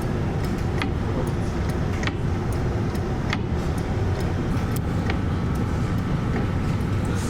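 Steady low rumble of a ship underway in rough seas, with a few sharp clicks or knocks scattered through it.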